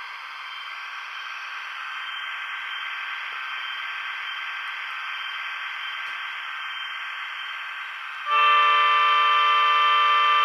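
DCC sound decoder in a model Victorian Railways diesel rail motor (DERM), playing through its small onboard speaker. The diesel engine runs steadily, then about eight seconds in a long, loud horn blast sounds for about two seconds and cuts off.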